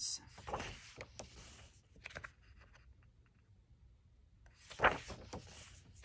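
Page of a thick-paged coloring book being handled and turned: a few soft paper rustles, then a short, louder paper swish about five seconds in as the page turns over.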